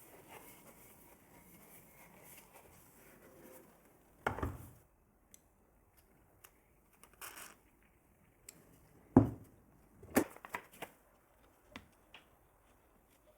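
Scattered clicks and knocks from objects being handled, with louder knocks about four, nine and ten seconds in and a faint hiss in the first few seconds.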